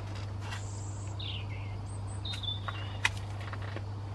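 A metal spoon clinking and scraping in a glass jar, several short clicks with the sharpest about three seconds in. Small birds chirp a few times in the background over a steady low hum.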